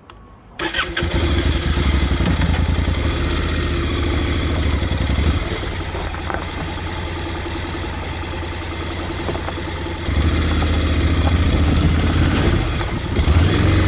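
Motorcycle engine running steadily, cutting in abruptly about half a second in; it is somewhat quieter from about five to ten seconds in, then louder again.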